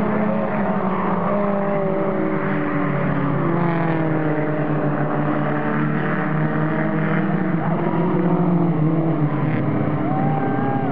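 Several four-cylinder mini stock race cars running hard around an oval as a pack, their engine notes overlapping and gliding up and down in pitch as they go through the turns and past.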